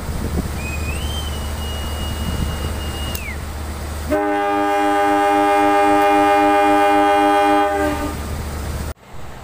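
A high whistle blast of about three seconds, sliding up at the start and falling off at the end. A little later the CC 201 diesel locomotive's air horn gives one long, steady blast of about four seconds. This is semboyan 35, the driver's horn signal acknowledging the departure call.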